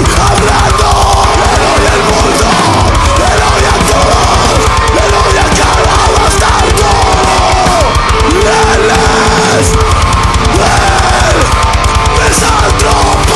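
Heavy metal band recording: loud, dense guitars over rapid, steady kick-drum strokes, with bending pitched lines running through it.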